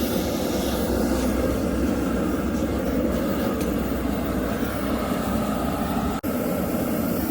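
A forge running while the knife blade reheats, giving a steady rushing noise. The noise cuts out for an instant about six seconds in.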